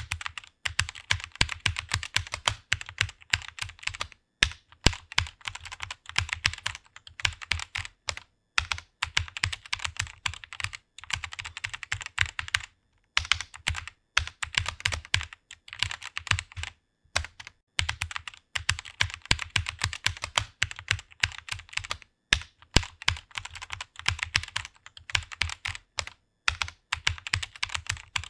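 Rapid typing on a computer keyboard, runs of quick key clicks broken now and then by brief pauses.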